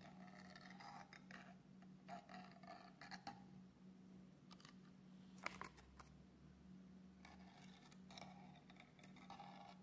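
Near silence with faint rustling and light clicks of satin and a paper template being handled and guided against the hot wire of a fabric-cutting machine, with one sharper click about five and a half seconds in, over a faint steady low hum.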